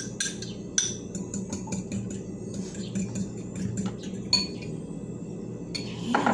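A fork beating eggs in a ceramic bowl: a quick, uneven run of metal-on-ceramic clinks, several a second.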